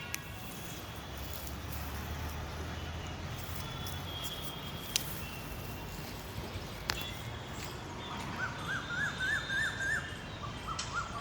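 Birds calling outdoors over a steady background hiss. In the second half a bird gives two quick runs of short, clear whistled notes, each note rising and falling.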